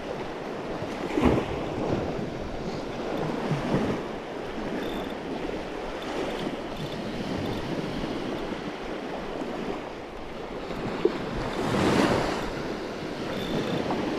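Small surf waves washing onto the beach, with wind buffeting the microphone; a louder wave wash swells up about twelve seconds in.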